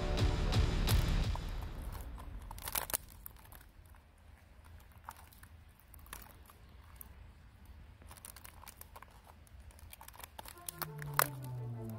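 Background music fades out in the first two seconds. What remains is faint, scattered clicking and scratching from the shells and claws of an Actaeon beetle and a rival rhinoceros beetle grappling on bark. Music returns near the end.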